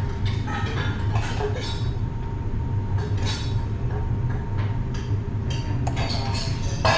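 A metal spoon clinking and scraping against a small stainless steel bowl as food is spooned out, over a steady low rumble of machinery. A sharper clink comes near the end.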